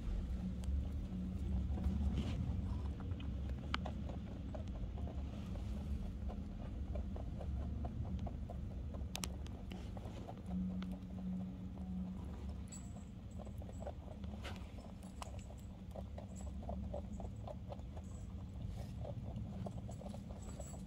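Lop-eared rabbits chewing pellets from a bowl close to the microphone: quick, even crunching that runs on.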